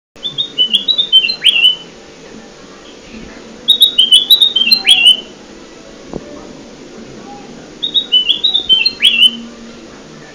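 Kutilang emas (golden bulbul) song used as a bird lure: three repeated phrases about four seconds apart, each a quick run of clear whistled notes stepping up and down and ending in a sharp downward slur. A faint steady hum lies underneath.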